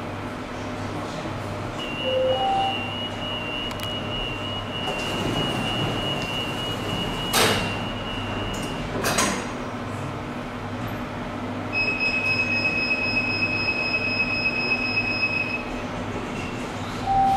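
Funicular station signals and car doors: a falling two-note chime, then a rapid high warning beep for about seven seconds with two loud thumps of sliding doors shutting near its end. A steady high warning tone follows for a few seconds, the two-note chime sounds again near the end, and a low machinery hum runs underneath.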